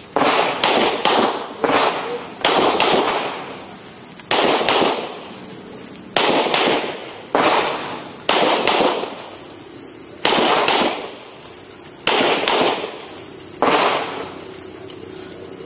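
Semi-automatic pistol firing on an outdoor range, about twenty sharp echoing shots, mostly in quick pairs a few tenths of a second apart, with short gaps between the pairs.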